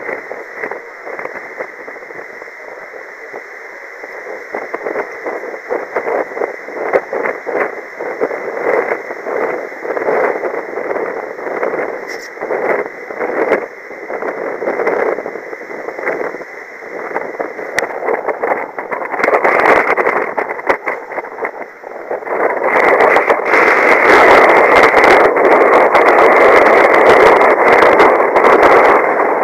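Wind rushing and buffeting over the microphone on the deck of a tall ship under sail, gusting unevenly and growing much louder about two-thirds of the way through.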